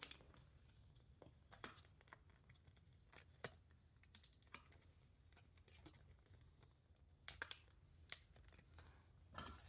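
Faint, irregular clicks and taps from a homemade fidget toy being fiddled with by hand, with two sharper clicks late on and a brief rustle at the very end.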